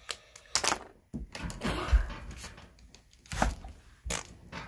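Several small knocks and clicks with a stretch of rustling and scraping in between, as craft materials are handled on a work surface; the loudest knock comes about two seconds in.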